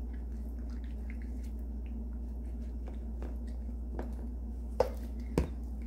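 Wet squelching and faint small clicks as chili-seasoned radish cubes are pressed into a plastic container by a plastic-gloved hand, with two short sharp clicks near the end. A steady low hum runs underneath.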